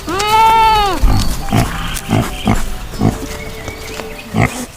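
Pig grunting in short repeated grunts, about two or three a second, after a loud one-second pitched call that rises and falls at the start.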